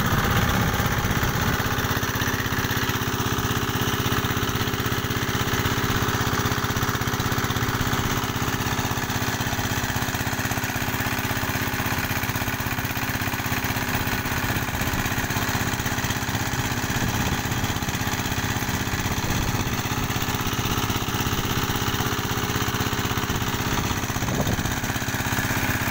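A small diesel engine and an electric water pump running steadily together. They drive the paralleled pumps of a well-drilling rig that flush drilling mud up out of the borehole.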